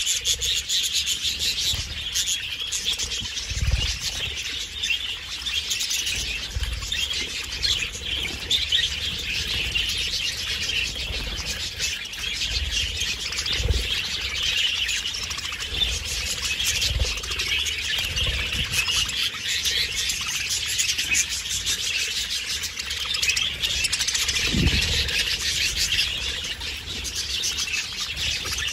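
A flock of budgerigars chattering and warbling without a break, with a few brief low thumps.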